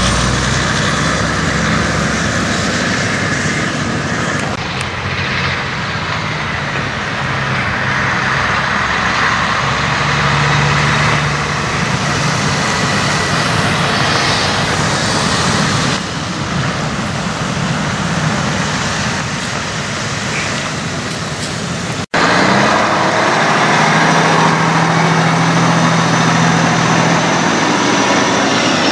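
Diesel semi trucks passing on a highway, engine running and tyres on the road, in a steady rush of traffic noise. About three quarters of the way through it cuts sharply to a louder, closer diesel truck engine.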